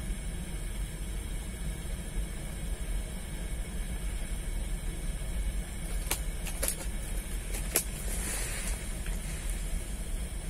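Steady low outdoor rumble, with a few sharp clicks about six to eight seconds in and a brief hiss just after.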